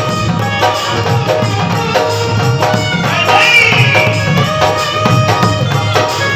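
Instrumental music of a Hindi devotional bhajan: sustained melody instruments over a steady hand-percussion beat, with a melodic run gliding up and down about three seconds in.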